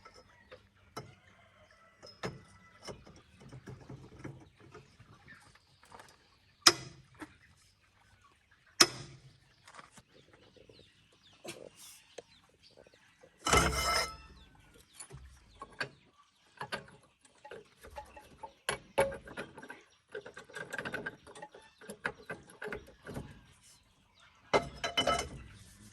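Irregular knocks, clicks and clanks of metal tools and parts being handled during repair work, with two sharp single hits and two longer bouts of clattering.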